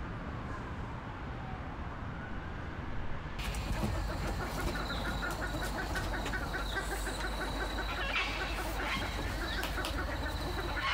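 Outdoor ambience with a faint passing vehicle, then, after a sudden change about three seconds in, store ambience with a shopping cart's wheels and frame rattling in a fast, regular patter and a steady high whine.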